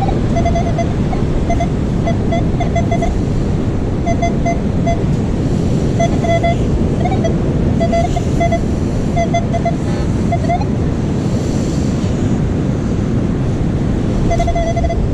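Metal detector sounding short, repeated mid-pitched beeps in uneven clusters, a few sliding upward, as it responds to a target in the sand, over steady wind and surf noise.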